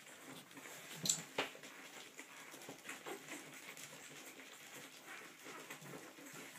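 Week-old Olde English Bulldogge puppies making small squeaks and soft sounds as they shuffle about, with a couple of sharper clicks about a second in.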